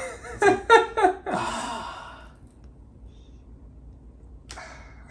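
A person's voice making a breathy, drawn-out vocal sound effect, a sigh-like exclamation after a few short voiced sounds, trailing off about two seconds in.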